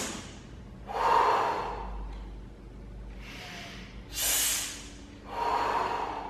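A man breathing loudly in and out through the mouth to show the breathing pattern for an overhead kettlebell press: four forceful breaths, two quick sharp ones each followed by a fuller one. The breath out is used to brace the core for the press.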